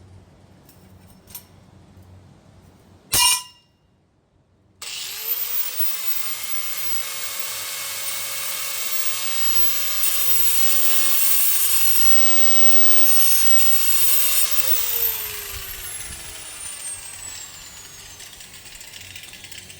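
Hammerhead 4.5-inch angle grinder starting up with a rising whine after a sharp click. It runs steadily, growing louder and harsher in stretches as the disc cuts into a metal chain link fence post, then is switched off near the end, its whine falling as the disc winds down.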